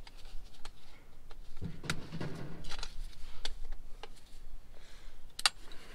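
Pliers and a screwdriver clicking and scraping against the small metal horseshoe clips of a drum brake shoe assembly as they are worked loose, with irregular sharp metal ticks and a louder click near the end.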